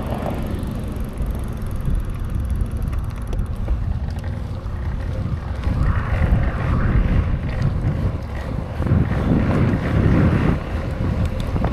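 Wind rushing and buffeting over the microphone of a BMX rider on the move. It is a loud, low rush that swells twice, once around the middle and again near the end.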